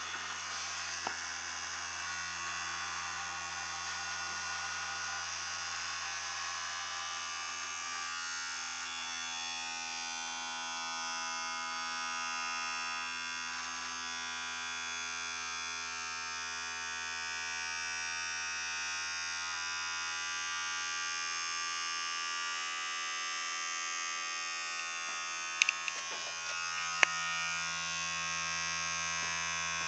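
Vibrating toothbrush motor on a 9-volt battery, buzzing steadily through the aluminium foil tray it is glued into. A few sharp clicks near the end.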